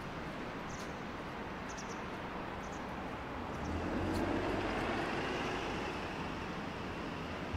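Steady city traffic noise that swells for a couple of seconds around the middle, as of a vehicle passing, then eases off. A few faint high chirps are heard early on.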